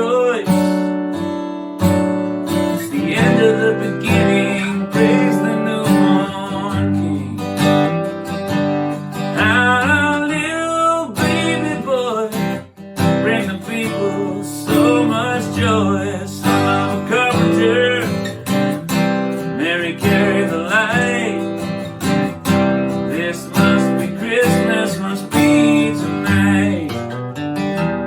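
Instrumental passage of a song: acoustic guitar strummed in a steady rhythm, with a wavering melody line over the chords.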